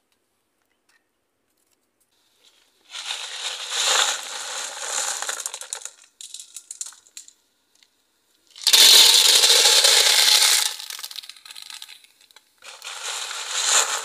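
Sarnambi clam shells poured into a large aluminium pot, clattering against each other and the metal in three bouts starting about three seconds in; the middle pour is the loudest.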